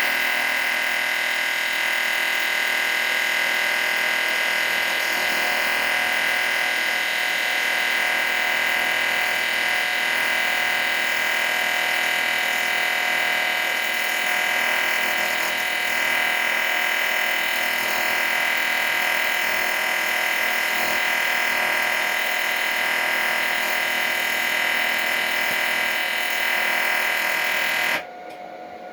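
Electric power tool running steadily at high speed with a constant high whine, then cut off shortly before the end.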